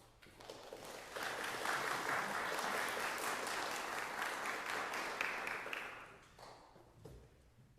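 Audience applauding: the clapping builds about a second in, holds, and dies away near the end.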